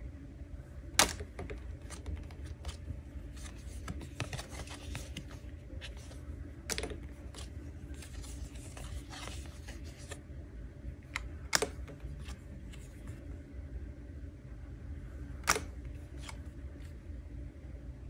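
Handwritten message cards being handled and flipped: four sharp card snaps spread across the stretch, with fainter ticks and soft sliding rustles between them, over a steady low hum.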